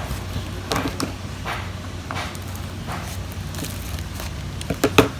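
Handling and unwrapping of a plant's shipping packaging: scattered rustling and crackling, with two sharp clicks near the end, over a steady low hum.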